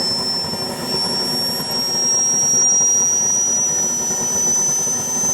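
Radio-controlled model airplane engine running at high revs: a thin, high whine that climbs slowly in pitch.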